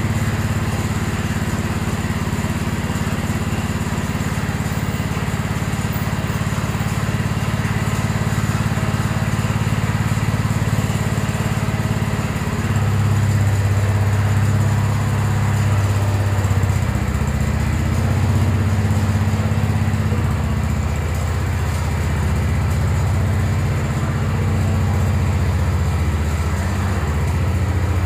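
Wheel Horse C120 lawn tractor's small engine running steadily, its note and level changing from about halfway through as the throttle or load shifts.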